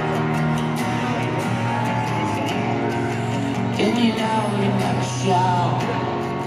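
Live rock band playing amplified through an arena PA, heard from the crowd: electric and acoustic guitars over sustained chords, with a voice briefly rising and wavering over the music about four seconds in.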